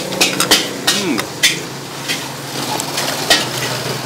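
Sharp metal clanks of cookware and utensils, a handful of irregular strikes, over a steady low hum.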